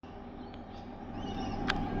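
Diesel locomotives of a coal train rumbling steadily, slowly growing louder, with birds chirping over it and a single click near the end.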